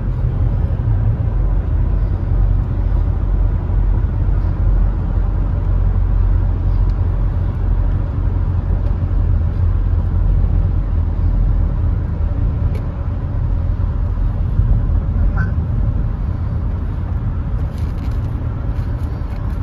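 Steady low road rumble of a moving vehicle, even throughout.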